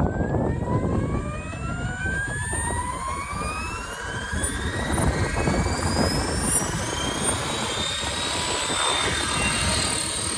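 Blade Fusion 480 electric RC helicopter spooling up: the motor and drive whine rising steadily in pitch as the rotor comes up to speed, over a rush of rotor blades, and lifting off near the end.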